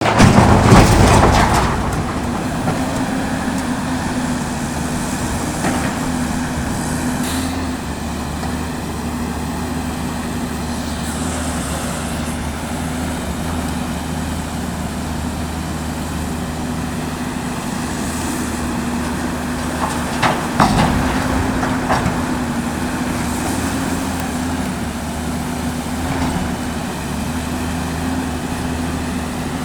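Caterpillar 329D L hydraulic excavator at work, its diesel engine running steadily under load. It is loudest at the start and surges again about twenty seconds in, with a few short knocks between.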